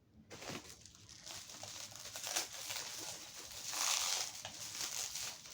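Plastic wrapping crinkling and rustling as it is handled and pulled off a toy, with small clicks and louder bursts of crinkling about two and a half and four seconds in.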